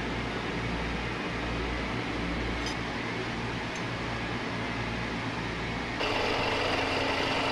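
Milling machine running, a steady motor hum and whir. About six seconds in it turns louder and adds steady higher whining tones.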